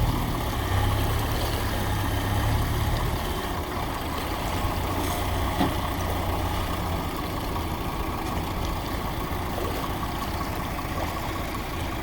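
Diesel engine of a backhoe or tractor idling steadily. Its low hum is strongest for the first three seconds and then eases off, with a single knock about five and a half seconds in.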